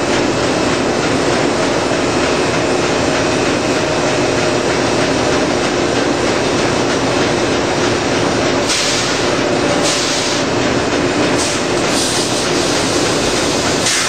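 Machinery of a steam-powered sawmill running: a loud, steady clatter and rumble with a few steady tones through it. Several short hisses come in the second half.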